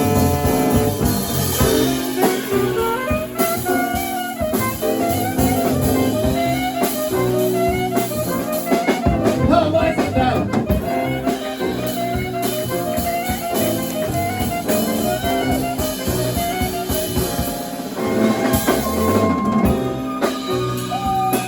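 Live band playing an instrumental section of a jazzy original song: a drum kit keeps time under a rippling lead melody line.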